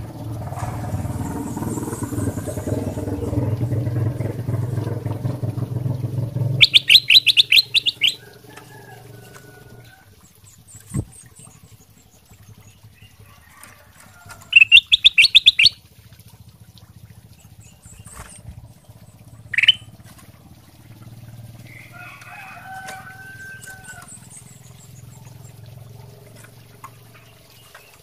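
Ruby-throated bulbul (kutilang emas) calling: two loud bursts of rapid chattering notes about eight seconds apart, a single short rising note a few seconds later, and a few soft whistles after that. A low rumbling noise fills the first six seconds or so.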